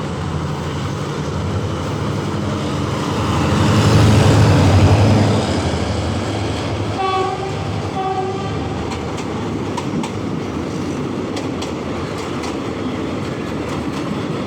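A diesel train passing close by, its engine running loudest a few seconds in, then two short horn blasts about a second apart. After that, the wheels clack over the rail joints as the carriages roll past.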